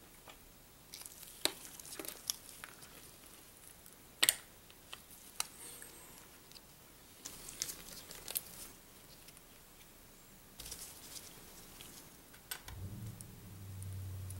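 Small sharp metal clicks and scrapes of watchmaker's tools on a watch case and leather strap, the loudest click about four seconds in, with crinkling of a thin plastic bag. A low steady hum comes in near the end.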